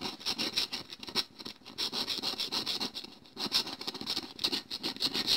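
Metal spoon scraping the top layer off a CD in rapid repeated strokes, flaking the disc's coating off as glitter. A short pause about three seconds in.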